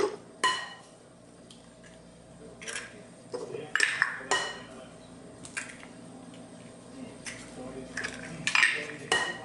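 Raw eggs tapped and cracked against the rim of a glass mixing bowl: a series of sharp taps spread over several seconds, several with a short glassy ring.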